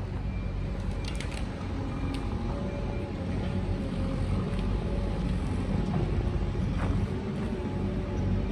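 Engine of heavy earth-moving machinery running steadily, a low rumble with a faint steady hum over it. A few light clicks come about a second in.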